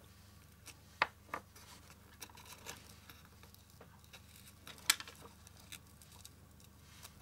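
Faint, scattered clicks and taps of fingers and pins handling ribbon on a foam ball, with a sharper click about a second in and another about five seconds in.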